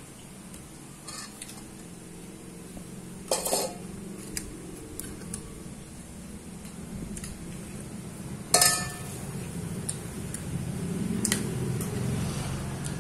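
Metal spoon clinking and scraping against a ceramic plate while eating, with two sharp clinks about three and a half and eight and a half seconds in, the second the loudest, and a few lighter taps between, over a low steady hum.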